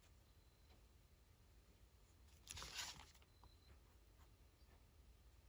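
Near silence, broken about two and a half seconds in by one brief scratchy stroke of an ink pen on paper.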